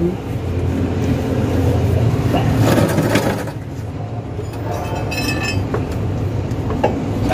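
Steady low mechanical hum, with a few short light knocks about three and five seconds in.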